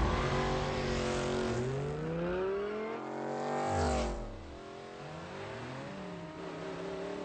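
A classic muscle car's engine revving hard as it accelerates, its pitch climbing for several seconds, then dropping sharply as the car speeds past about four seconds in. After that the engine runs lower and quieter, its pitch rising and falling as the car keeps racing.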